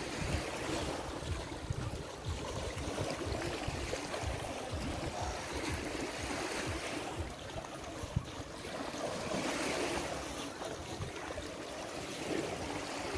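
Small Adriatic waves washing onto a sandy beach in a steady rush, with wind buffeting the microphone in low gusts.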